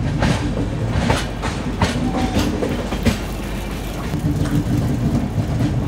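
Moving passenger train of LHB coaches, heard from an open coach doorway: a steady rumble of wheels on rail, with sharp clacks as the wheels cross rail joints and points, about one every 0.7 s in the first half, then a more even run.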